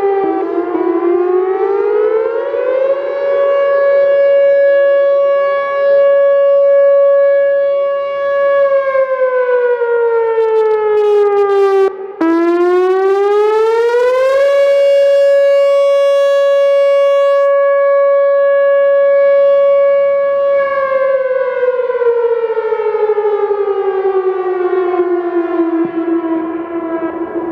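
Whelen Vortex R4 electronic outdoor warning siren sounding the attack signal, loud. Its wail rises, holds a steady top pitch for several seconds, then slides back down, twice, with a brief break in the middle.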